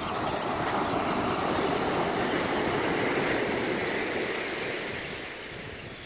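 Ocean surf breaking and washing up a sandy beach: a steady rushing noise that swells in the first second and eases off near the end. One faint high chirp about four seconds in.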